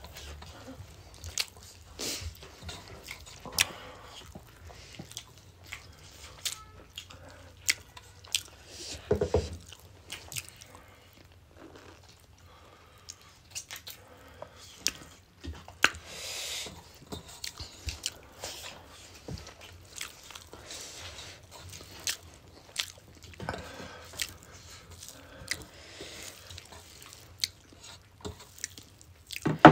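Mukbang eating sounds: close-miked chewing and crunching of rice and curry eaten by hand, with many small scattered clicks and smacks. A sharp knock near the end is the loudest sound.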